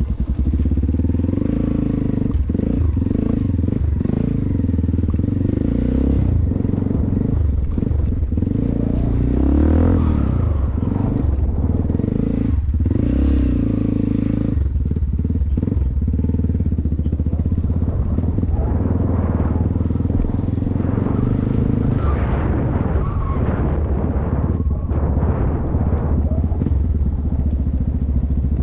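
Yamaha XT225's single-cylinder four-stroke engine running while the bike is ridden, steady and loud, its note rising and falling with the throttle.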